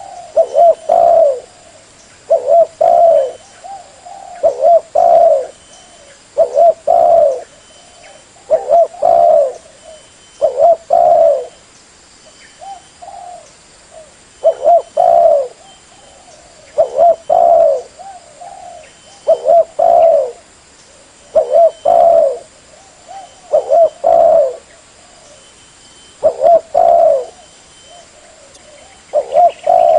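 Spotted dove cooing over and over, a loud recorded lure call: short phrases of two or three coos about every two seconds, with a few softer notes between.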